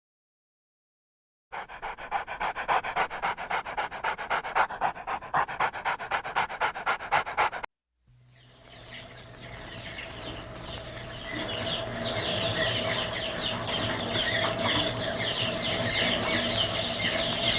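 A dog panting in quick, even breaths, about four a second, for about six seconds. After a brief gap it gives way to a denser, steadier sound of many short, high falling notes that grows louder.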